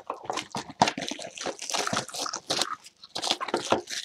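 Plastic shrink-wrap on a sealed trading-card box crinkling and crackling as fingers pick at it to open the box, a quick irregular run of crackles.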